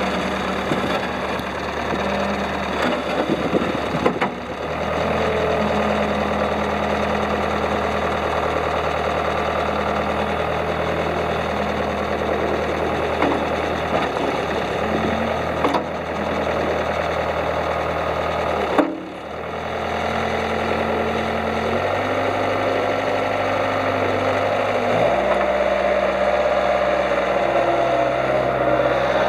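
Diesel engine of a 2007 Bobcat S130 skid steer loader running steadily at idle. Its pitch steps up and down a few times, with short dips at about four seconds and nineteen seconds in.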